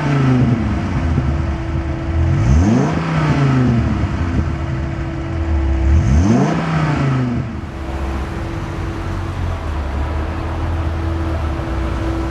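2001 Dodge Viper RT/10's V10 engine revved three times through its exhaust, each rev rising sharply and falling back, then settling into a steady idle about seven seconds in.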